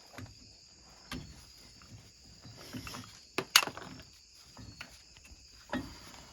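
Scattered metallic clicks and knocks of brake parts and hand tools being handled during a brake pad change, the loudest knock about three and a half seconds in.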